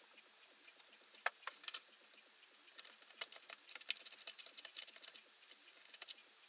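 A quick, irregular run of small light clicks and taps, busiest in the middle, over a faint steady high whine.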